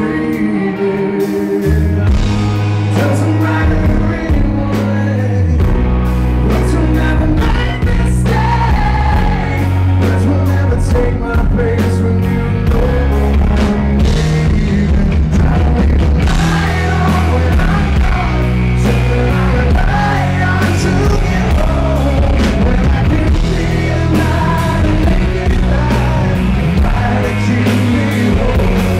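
Live rock band playing a song: a male lead singer over guitars, bass and drums. The band grows louder and fuller about a second in.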